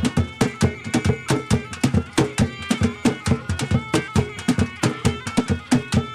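Traditional Swahili ngoma music: hand drums beating a quick, steady rhythm of several strokes a second, with a held melody line over the drumming.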